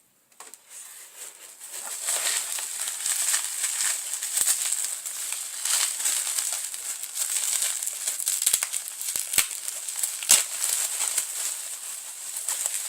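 Crinkly packaging being handled and unwrapped, a dense crackling rustle with a few sharp clicks. It starts softly and grows louder about two seconds in.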